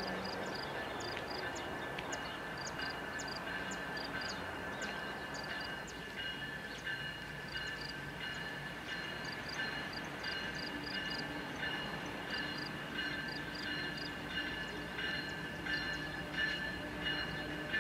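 A train's railcars rolling past, with several steady high-pitched tones from the wheels and quick, light ticking over the top.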